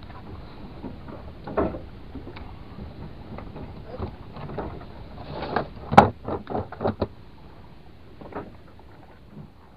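Irregular knocks and clatter of gear being handled on a small fishing boat, with a quick run of knocks about six seconds in, the loudest of them, over a steady low rumble.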